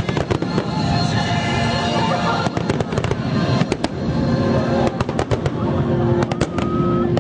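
Fireworks going off in quick succession, many sharp bangs and crackles, with music playing underneath.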